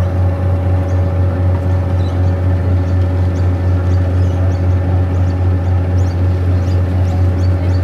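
River cruise boat's engine running steadily under way, heard on board: a deep, even drone with a steady hum above it.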